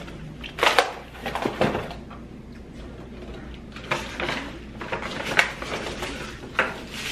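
Cardboard pizza box and takeout packaging being handled on a counter: rustling with a few sharp knocks at irregular intervals.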